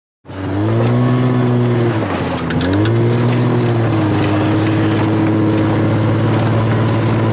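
Motor vehicle engine running at steady revs, towing a line of sleds; its pitch dips and climbs back about two seconds in, like a gear change, with some clatter.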